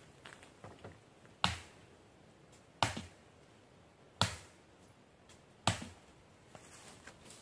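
Four sharp blows on wood, one about every second and a half, as poles of a lean-to shelter frame are worked by hand.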